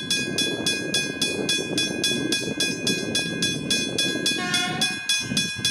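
Westinghouse hybrid level-crossing bell ringing in a rapid, even rhythm of about three to four strikes a second, over a low rumble that fades about five seconds in. A short horn blast sounds about four and a half seconds in.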